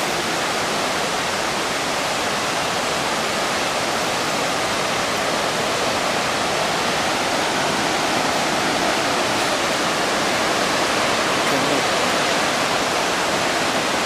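Victoria Falls plunging into its gorge: a steady, even rush of falling water.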